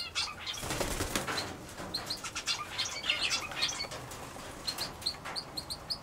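European brown hare snorting in a series of short bursts, its peculiar noise sounding like a mix of a sneeze and passing wind. It typically makes this sound when slightly annoyed or in anticipation of food, not from illness.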